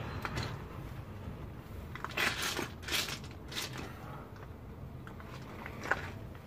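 A person moving and working close by: a few short scuffing, rustling scrapes, clustered between about two and four seconds in.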